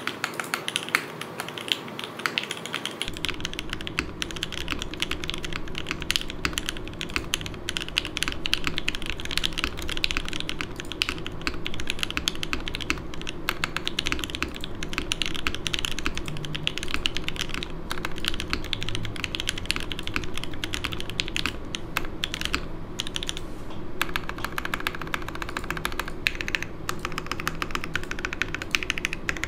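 Continuous typing on a Hineybush Ibis mechanical keyboard: lubed FFF switches in a top-mounted aluminium plate under GMK keycaps, a dense run of keystroke clacks. An air conditioner's steady low hum runs beneath, growing stronger about three seconds in.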